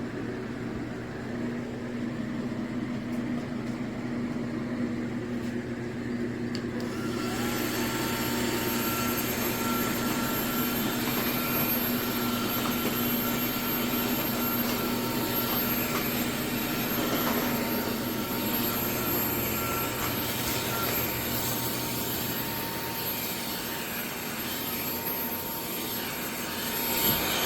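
Kermoky cordless stick vacuum running. About seven seconds in, its motor sound steps up: a short rise in pitch, then a steady high whine over a louder rush of air.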